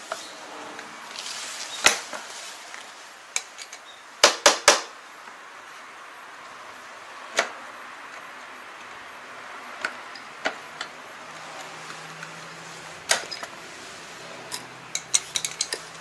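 Metal clinks and knocks from handling a tractor PTO drive shaft and its fittings. Sharp clicks come every second or few, with three loud knocks in quick succession about four seconds in and a quick rattle of small clicks near the end.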